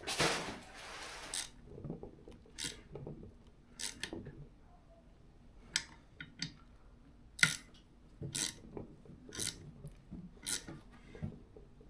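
Hand tools and metal seat hardware being worked: a short rustling hiss at the start, then scattered sharp clicks and taps about once a second.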